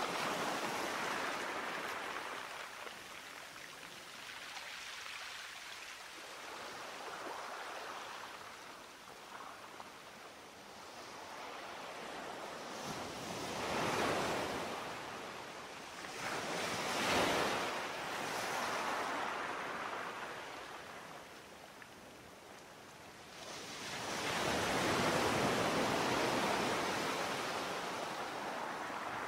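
Sea waves washing in and drawing back, a slow rise and fall of surf noise with several swells; the biggest come about halfway through and near the end.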